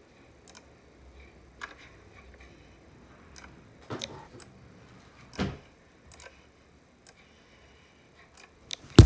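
Scattered light clicks of a computer mouse, irregular, about a dozen in all, with a stronger pair about four seconds in and a louder click about five and a half seconds in. Right at the end a much louder sound cuts in.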